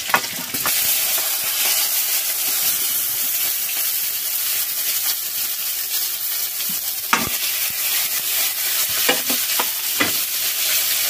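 Eggplant pieces dropped into hot oil with cumin seeds in a kadhai, sizzling steadily from about half a second in as they start to fry. A few short metal clinks come late on, as the steel plate is scraped against the pan.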